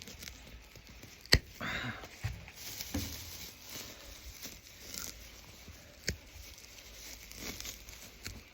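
Hay being rustled and pulled apart, crinkling and tearing, with a few sharp knocks, the loudest about a second and a half in.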